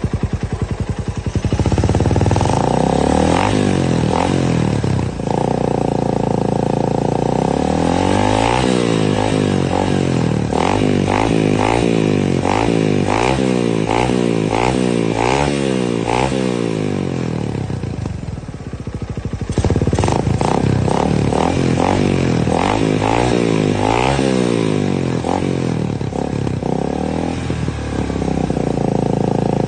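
Suzuki Raider 150 first-generation single-cylinder engine, stock with stock carburettor, running through an Organ Sports 'chicken pipe' aftermarket exhaust with a 51 mm elbow, being revved. There is a held rev near the start, then a long run of quick throttle blips at about one a second. The revs drop briefly past the middle, then come more blips and a long held rev near the end.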